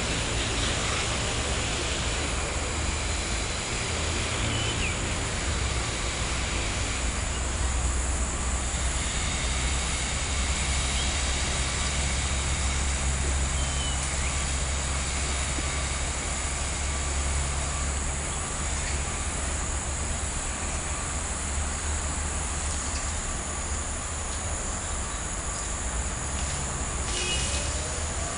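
Outdoor ambience: a steady low rumble under a constant high-pitched insect drone, with a few faint short chirps now and then.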